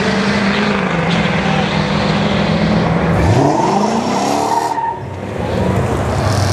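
Drag-racing car engines: a steady engine drone, then an engine revs hard and sharply up about three seconds in, drops off near five seconds, and revs up again near the end.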